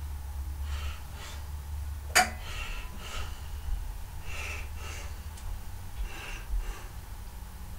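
A person breathing audibly, short hissy breaths in pairs every second or so, with a single sharp click about two seconds in over a steady low hum.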